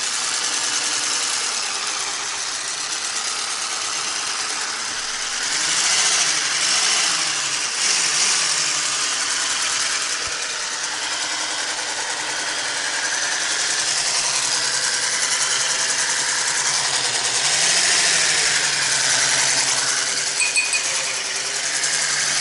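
Electric hand mixer running with its whisk beaters in a bowl of dough, beating in flour and baking powder until the mix is smooth. Its steady hum wavers in pitch around six seconds in and again near eighteen seconds, with a few short clicks near the end.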